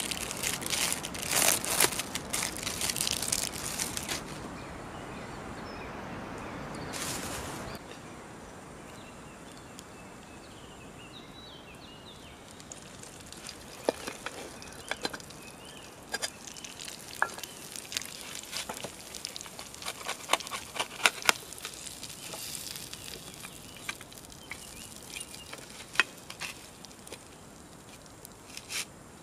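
Plastic wrapping crinkling as cheese slices are peeled off during the first few seconds, then a camping frying pan of hot oil crackling and sizzling with scattered sharp pops, raw beef burger patties going in near the end.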